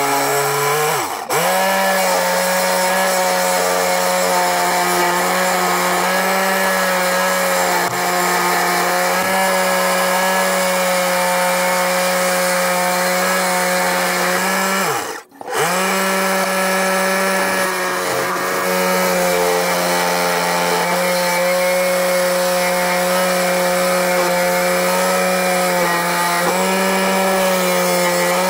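Table-mounted reciprocating saw attachment, driven by an electric drill, sawing through a thick wooden beam. A steady motor whine with the blade's buzz. It cuts out briefly about a second in and again about halfway, then starts up again.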